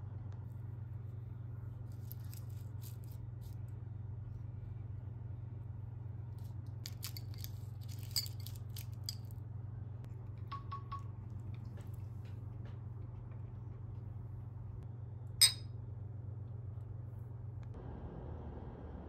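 Metal chopsticks clicking lightly against a ceramic plate several times, with one sharp clink about fifteen seconds in, over a steady low hum that drops away near the end.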